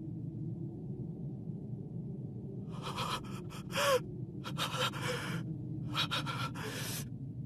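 A young man's voice gasping three times in strained, breathy bursts, the first ending in a short voiced catch, over a steady low drone.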